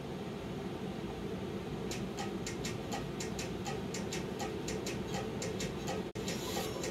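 Quick, even ticking, about four to five ticks a second, beginning about two seconds in, over a low steady hum.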